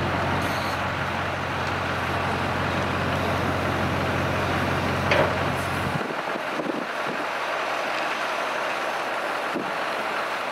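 CAT 329E excavator's diesel engine running with a steady low drone under a broad rushing noise, with one sharp knock about five seconds in. About six seconds in the low drone drops away abruptly, leaving the rushing noise.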